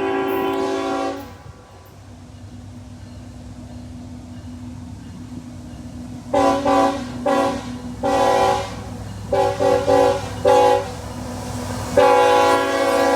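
CSX freight locomotive's multi-chime air horn: a held blast cuts off about a second in, the train's rumble grows louder, then a run of about seven short blasts starts about six seconds in, followed by a long blast near the end, the crew playing a horn show.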